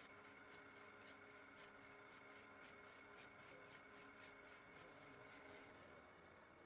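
Faint steady machine hum with a regular light ticking, about three ticks a second, fading out at the very end.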